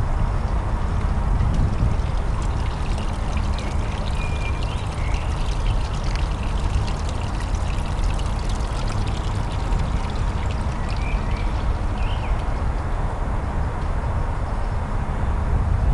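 Steady low outdoor rumble, with a few short chirping bird calls about four seconds in and again around eleven to twelve seconds in.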